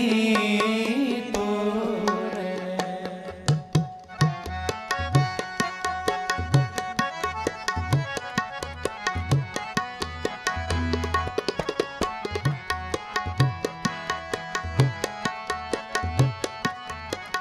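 Instrumental interlude of Sikh kirtan: tabla playing a steady rhythm over sustained harmonium notes. A held sung note trails off in the first couple of seconds.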